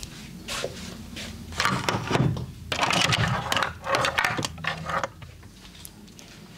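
Hands working over skin during a massage: a run of rubbing, scraping strokes with a few sharper hits, from about half a second in until about five seconds.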